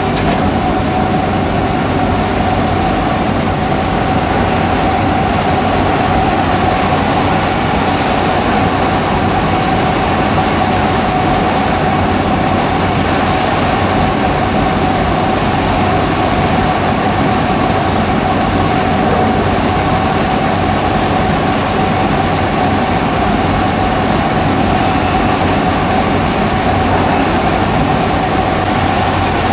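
A steady, loud mechanical drone with a constant whine running through it, unchanging throughout.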